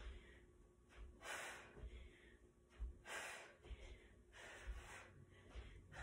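Hard, forceful breathing of a woman mid-workout: sharp exhales about every one and a half to two seconds, with soft low thuds of bare feet stepping on a rug.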